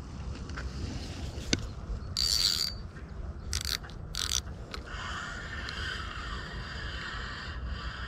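Spinning reel being cranked to retrieve a cast lure: a steady mechanical whir from about five seconds in. A few short noisy bursts come before it.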